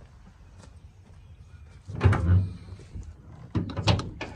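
Mazda B3000 pickup's hood being released and lifted: a clunk about two seconds in, then a quick cluster of metal clunks and clicks near the end as the latch lets go and the hood swings up.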